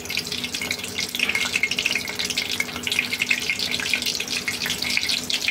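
Batter-coated cauliflower pieces deep-frying in hot oil: a steady, dense sizzle and crackle as the oil bubbles around them.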